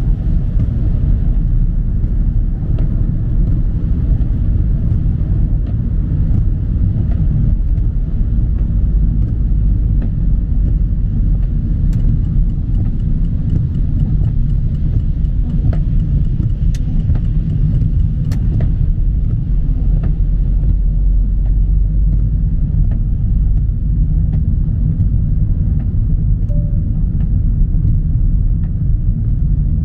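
Steady low rumble of tyres and engine heard inside a car driving on a wet highway in the rain, with a few faint ticks in the middle.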